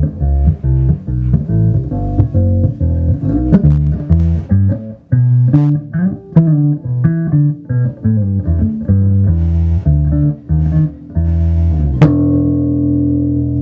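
Birdsong Cortobass short-scale electric bass played on its neck humbucker with the tone control rolled off, a jazz tone: a quick line of plucked notes, then a final note struck about twelve seconds in and left to ring.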